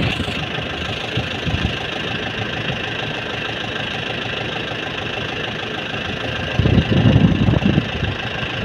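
Kubota M6040SU tractor's four-cylinder diesel engine idling steadily, with a brief louder, rougher low rumble for about a second and a half near the end.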